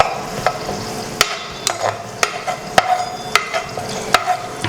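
Bay leaves frying in hot oil in a pressure cooker, with a steady sizzle. A spoon stirs and knocks against the metal pot about twice a second.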